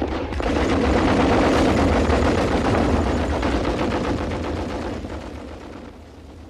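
Rapid, sustained machine-gun fire over a low rumble, fading away over the last two seconds.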